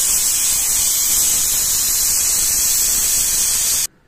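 Steam hissing out of a stainless-steel pressure cooker's vent as its weight is lifted with a ladle to let the pressure out before opening the lid. It is a loud, steady, high hiss that cuts off suddenly near the end.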